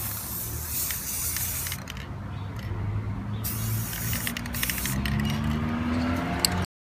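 Aerosol spray paint can hissing in three long bursts, with short pauses between them. The sound cuts off abruptly near the end.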